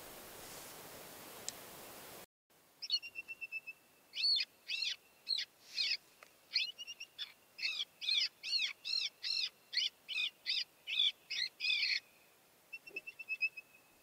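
Predator call playing a distress cry: a run of short, high-pitched falling cries, about two a second, with a thin steady stuttering tone just before and after. A faint hiss opens the stretch and cuts off suddenly about two seconds in.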